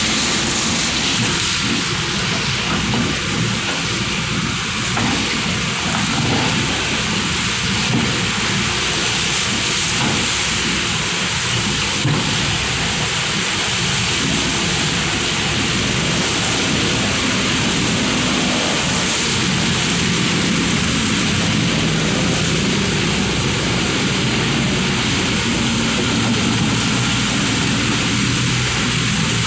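Heavy machinery running steadily, an engine's low hum under a constant loud hiss, with no breaks.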